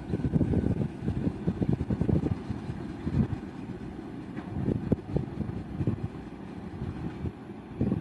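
Wind buffeting the microphone in irregular gusts, strongest in the first couple of seconds and again about five seconds in, over the low rumble of a long freight train fading into the distance.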